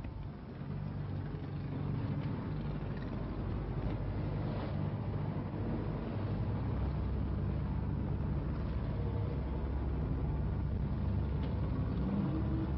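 A boat engine running steadily under wind and rough-sea noise, growing a little louder about two seconds in.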